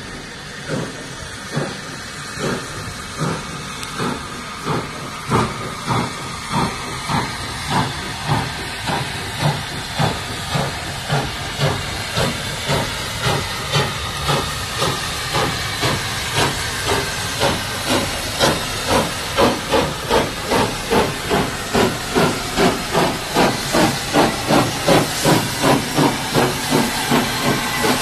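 USATC S160 2-8-0 steam locomotive No. 5820 hauling a train of coaches. Its exhaust beats get louder as it draws near and quicken from about one a second to nearly two a second, over a steady hiss of steam.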